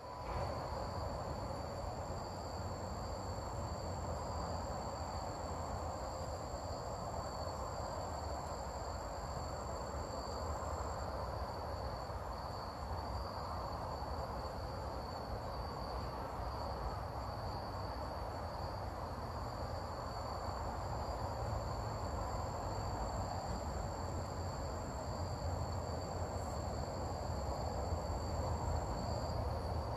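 Steady outdoor insect chorus, a continuous high-pitched chirring that does not let up, over an even low background rumble.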